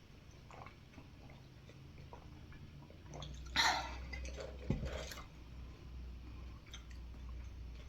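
Quiet eating sounds: food being handled and wet mouth noises, with a louder noisy burst about three and a half seconds in and a sharp click about a second later.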